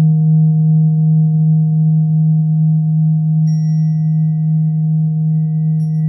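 A struck singing bowl ringing on with a steady, pure low hum and a few fainter higher overtones. About three and a half seconds in, a second, much higher tone is touched in briefly and keeps ringing faintly.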